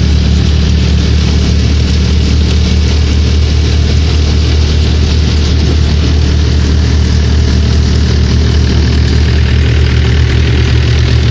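Mahindra 475 DI tractor's diesel engine running steadily, powering a barley thresher, with the thresher's drum and blower running and grain rushing through the machine.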